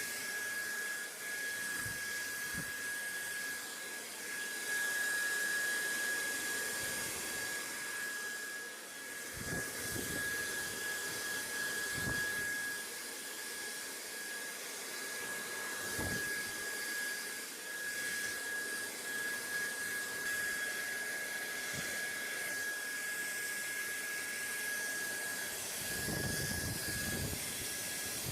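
BayBliss 2 appliance running: a steady, airy blower hiss with a constant high-pitched whine over it and a few faint low knocks.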